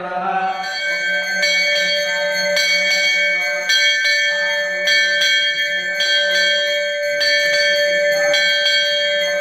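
Large metal temple bell rung by hand over and over, about one stroke a second. Each stroke rings on and blends into the next.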